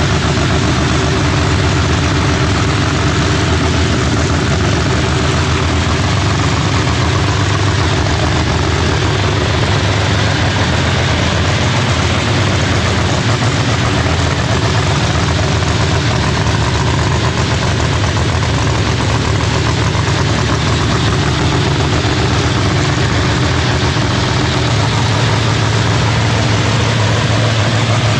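Pro Line MH7 Hemi-style drag race engine idling steadily and loudly, just fired up after a freshening.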